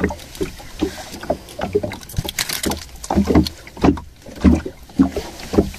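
Irregular knocks and thuds on a small fishing boat, coming faster from about three seconds in.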